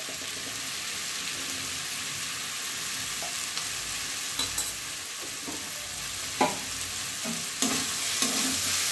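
Mushroom and potato curry frying in a metal kadai with a steady sizzle while it is dry-fried (bhuna) in its spice paste. A metal spatula clicks and scrapes against the pan a few times in the second half as the curry is stirred.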